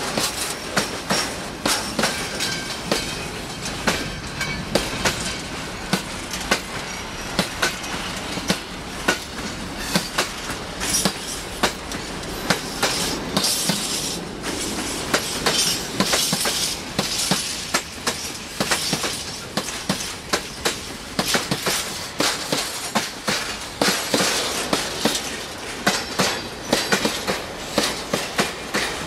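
Freight wagons rolling past close by, their wheels clacking steadily over the rail joints. There are stretches of high-pitched wheel squeal about halfway through and again near the end.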